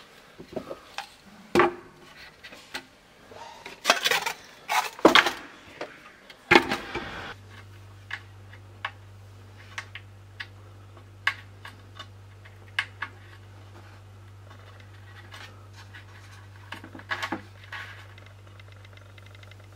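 Small wooden parts and hardware handled on a workbench: a run of sharp clicks and knocks, dense in the first seven seconds, then scattered. A steady low hum sets in about seven seconds in.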